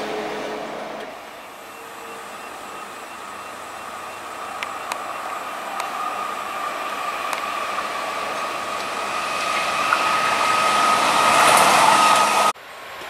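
Yellow rail maintenance vehicle approaching along the track, its running noise growing steadily louder, with a steady whine and a few sharp clicks from the wheels on the rails. It opens with the last of a diesel railcar's engine note, and the sound cuts off abruptly near the end.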